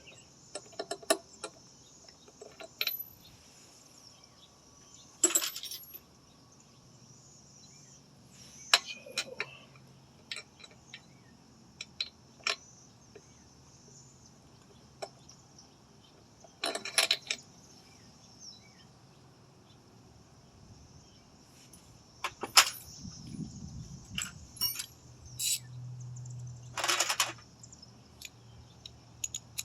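Scattered metallic clinks and clicks of hand tools working on a lawn mower engine to take out the spark plug, over a steady high chirring of insects.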